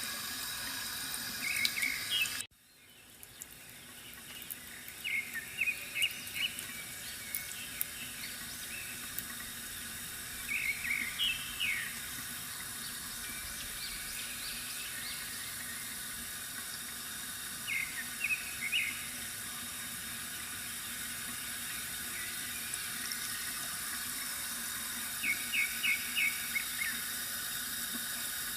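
Steady trickling water from a bamboo water fountain, with short bursts of bird chirping every several seconds. About two and a half seconds in, the sound cuts out suddenly and fades back in.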